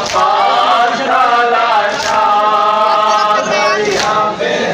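Men's group chanting a Muharram nauha (mourning chant) in unison, a held melodic line. A sharp stroke, taken for the crowd's matam (rhythmic chest-beating), lands about every two seconds in time with it.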